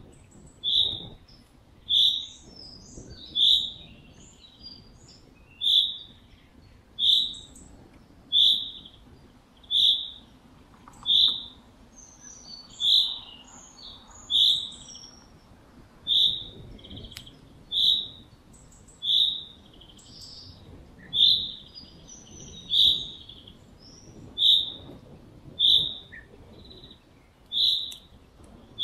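A short, high-pitched chirp repeating every one to two seconds at a steady loudness, over fainter scattered higher chirps and a low rumble.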